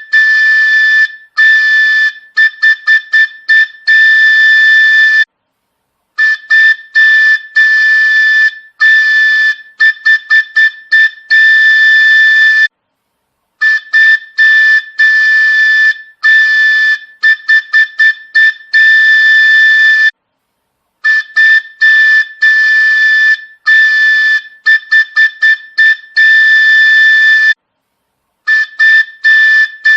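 Train horn sound effect: one high, whistle-like tone sounded in runs of quick short toots and longer blasts of about a second. The same pattern repeats about every seven seconds, with short pauses between runs.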